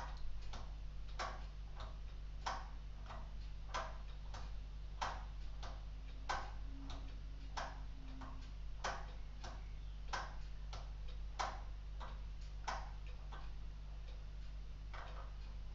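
LEGO Technic clock's escapement ticking steadily, a louder click about every second and a quarter with softer ticks in between.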